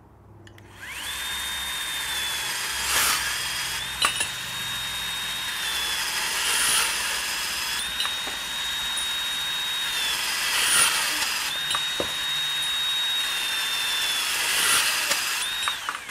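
Bosch 18V cordless compact band saw with a 14–18 TPI blade cutting through half-inch EMT steel conduit. Starting about a second in, there is a steady high motor whine over the hiss of the blade in the metal. The whine dips briefly about every four seconds, and a couple of sharp clicks sound, until the cut finishes near the end.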